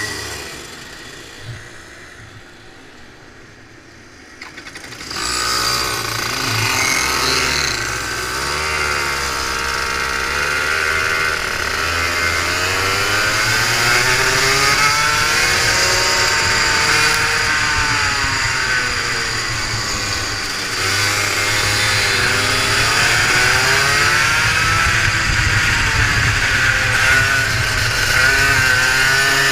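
Rotax Max 125 cc two-stroke kart engine heard from onboard the kart. It is fainter for about the first five seconds. Then it comes in loud, its pitch climbing and dropping again and again as the throttle is opened and closed around the lap.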